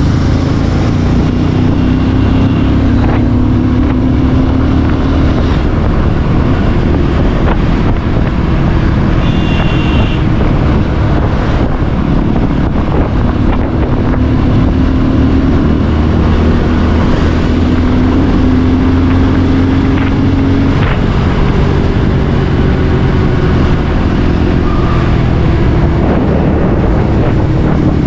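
Bajaj Pulsar 150's single-cylinder engine running under way, heard from the rider's seat with heavy wind noise on the microphone. The engine note climbs slowly several times as the bike pulls.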